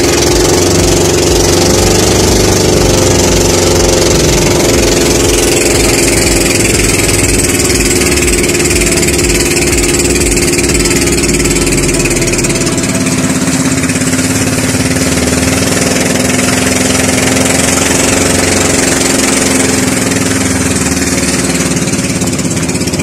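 Small motor boat (bangka) engine running steadily under way, with water rushing and spraying along the hull. The engine note shifts a little about thirteen seconds in.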